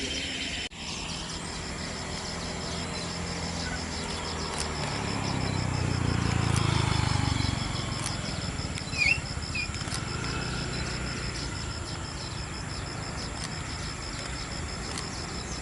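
Distant jet airliner's engines, a low rumble that swells to a peak about six or seven seconds in and then eases off. A steady insect trill runs underneath, and a bird chirps briefly about nine seconds in.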